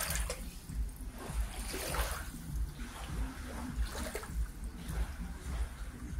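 Lake water lapping and splashing against moored boats in small irregular splashes.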